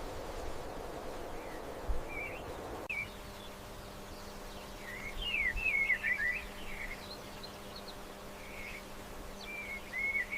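Small birds chirping in short rising and falling calls, busiest about halfway through and again near the end. A faint steady hum lies underneath from about three seconds in.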